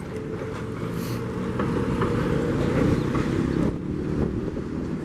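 A vehicle passing in the street, its hum swelling to a peak a couple of seconds in and falling away after about three and a half seconds.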